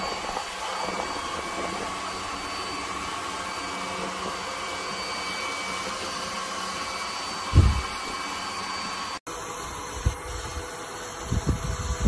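Robot vacuum cleaner running: a steady whir of its suction fan with a thin high whine, broken by one loud low thump about seven and a half seconds in. Near the end the whir is quieter, with several soft low bumps.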